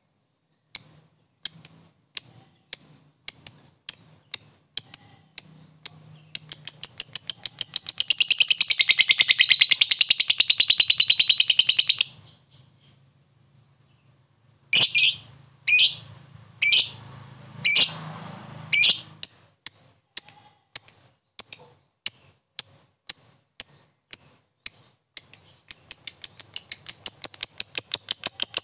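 Lovebird calling: a run of short sharp 'ngetik' chirps about two a second breaks into a long, fast chattering 'ngekek' trill for about six seconds. After a brief pause the loud chirps resume and speed up into another rapid trill near the end.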